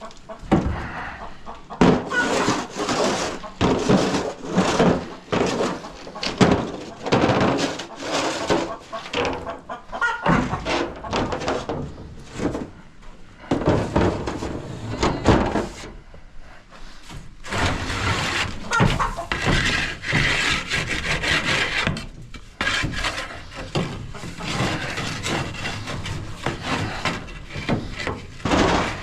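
A custom welded metal scraper is dragged over and over across a chicken coop's wooden roost shields, scraping off dried droppings in irregular strokes, with a short pause about two-thirds of the way through. Hens cluck throughout.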